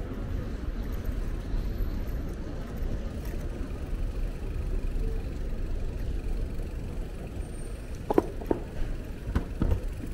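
Road traffic rumbling on a city street, with a few short knocks near the end.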